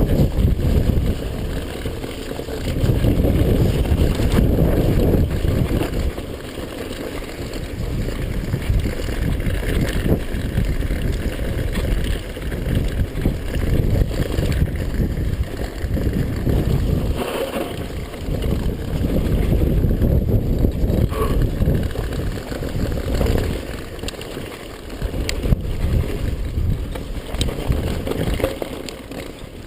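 Wind buffeting the microphone: a loud low rumbling rush that swells and dips every few seconds, with a few faint ticks near the end.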